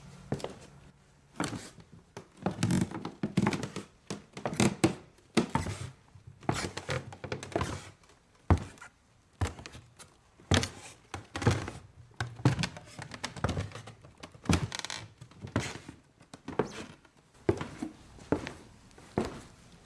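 Footsteps walking on a wooden stage floor: shoes striking hardwood boards in an uneven series of knocks, about one or two a second.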